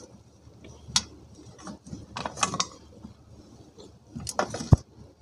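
Dry multani mitti (Fuller's earth clay) being snapped and crumbled by hand close to the microphone: a sharp crack about a second in, then two spells of crunchy crackling, one around the middle and one near the end, which closes with a loud knock.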